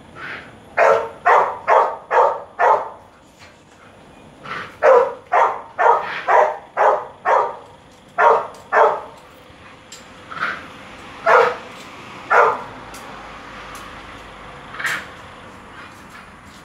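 A dog barking repeatedly in quick runs of several barks, about two to three a second, then a few single barks spaced further apart and fainter toward the end.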